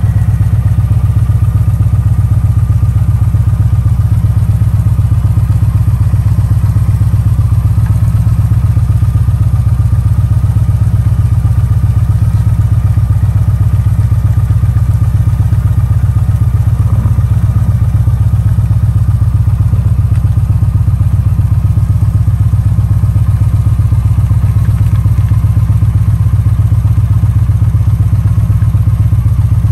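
Motorcycle engine idling steadily and loudly.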